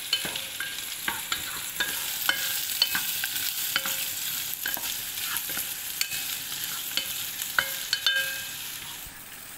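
Chicken sausage and kebab pieces sizzling in hot oil in a pot, stirred with a wooden spatula that knocks and scrapes against the pot several times a second, each knock ringing briefly.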